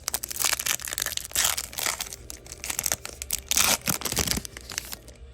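A trading card pack's wrapper being torn open and crinkled by hand, a run of irregular crackling rips that dies down near the end.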